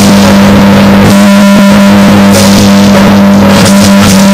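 Loud background music over a steady low drone.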